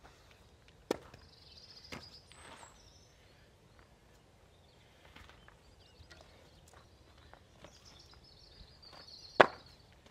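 Sharp wood-on-wood knocks as firewood logs are handled at a chopping block: one about a second in, a smaller one about two seconds in, and the loudest near the end as a log is set on the block.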